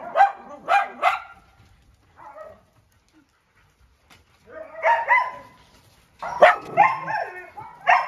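Dogs barking: a few quick barks in the first second or so, a pause of about three seconds, then barking again from about five seconds in, busier toward the end.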